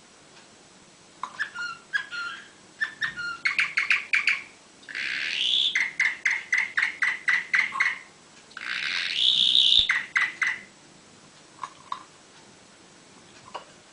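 Canary singing in a show cage: a run of short chirps starting about a second in, then two long rapid trills of repeated notes, each opening with a buzzy rising sweep. The song stops about ten seconds in, leaving a few faint chirps.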